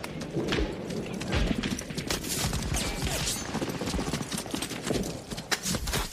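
Airsoft guns firing in scattered, irregular shots, sharp pops and clicks coming at uneven intervals.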